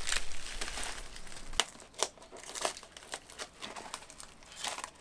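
Packaging crinkling and crackling in irregular bursts as seedlings are unwrapped by hand.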